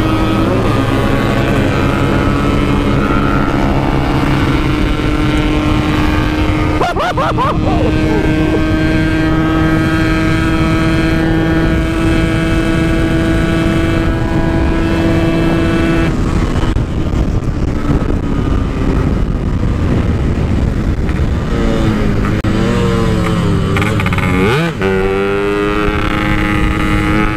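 Yamaha RX-King's 135cc two-stroke single-cylinder engine under way through an aftermarket exhaust, holding a steady pitch for the first half, then shifting and rising and falling in revs in the second half.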